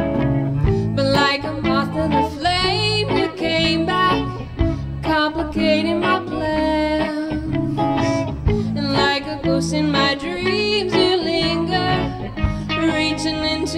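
Live rock/pop band playing a song: drum kit, several electric and acoustic-electric guitars, and a woman singing lead into a microphone.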